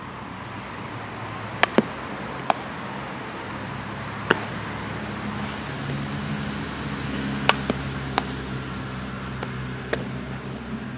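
Sharp knocks of softballs being hit and caught in a leather glove during a ground-ball fielding drill, about nine at uneven intervals. A low hum comes in about halfway through.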